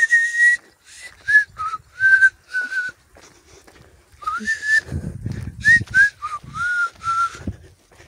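A person whistling a wandering tune in short sliding notes, with a pause about three seconds in.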